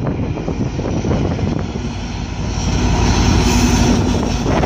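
GO Transit bilevel coaches rolling past with a steady low rumble, then the train's EMD F59PH diesel locomotive drawing alongside about halfway through, its engine note rising and growing louder.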